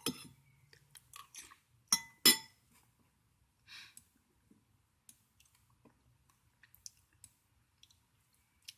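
Computer mouse clicking and sliding while drawing with the pencil tool in MS Paint: scattered sharp clicks, the loudest a pair about two seconds in, with a few soft scraping rustles between them.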